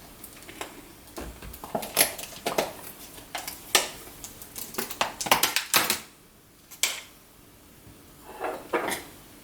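A shipping box and the spider's container inside it being opened and handled: a string of sharp clicks, taps and knocks of hard plastic and cardboard, thickest through the middle, then a pause and a few more near the end.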